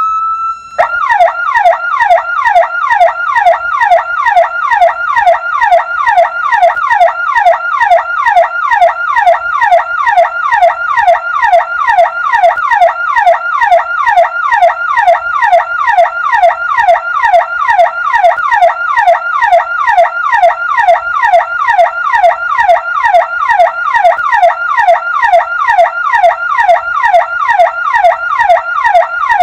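Electronic ambulance siren: a rising wail breaks off just under a second in, then the siren switches to a fast yelp, its tone sweeping up over and over, about three times a second, steady and loud.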